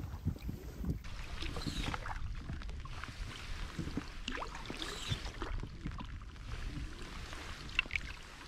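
Wooden paddle strokes from a canoe: irregular splashing and dripping water as the blade dips and pulls, over a low steady rumble.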